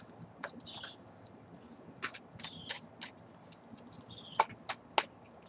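A deck of oracle cards being shuffled by hand: quiet, scattered soft rustles and clicks of card on card, with two sharper clicks near the end.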